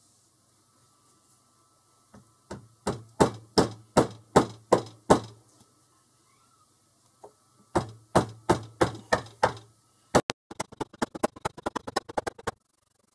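Claw hammer striking a small metal lock part on a rubber desk mat: two runs of sharp blows at about three a second, then a quick clatter of lighter, faster taps near the end.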